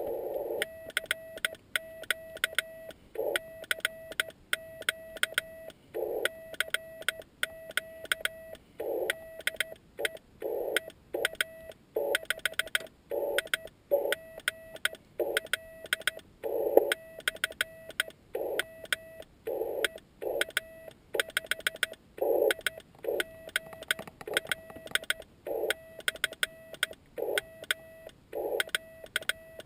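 Morse code keyed slowly by hand on a homemade key built from bicycle parts: the Yaesu FT-817ND's steady sidetone sounding in dots and dashes, with a sharp click from the key at each stroke.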